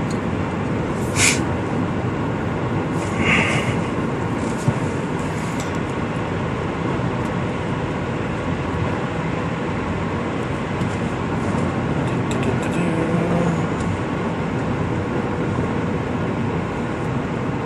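Steady engine and road noise inside the cabin of a moving 2006 Subaru Legacy GT with a turbocharged flat-four, with a couple of short higher sounds in the first few seconds.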